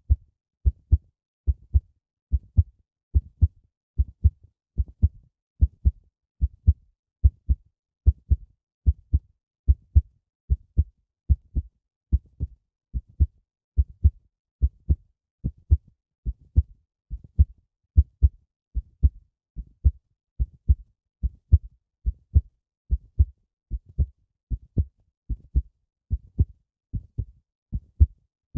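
A heartbeat: a steady, regular run of deep double thumps, lub-dub.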